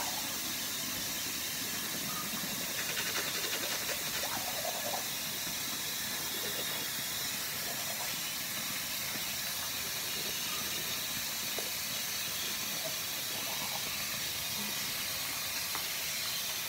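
A steady hiss throughout, with faint scratchy scrubbing of a manual toothbrush on teeth a few seconds in.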